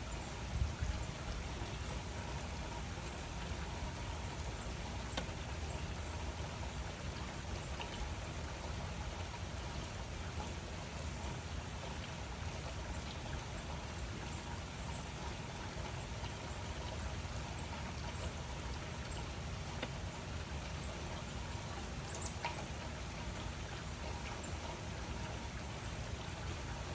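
Steady rain falling, with scattered drops ticking against surfaces over a low rumble.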